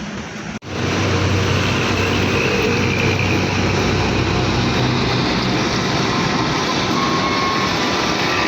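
A steady, loud mechanical roar with a low hum, starting abruptly after a short break about half a second in.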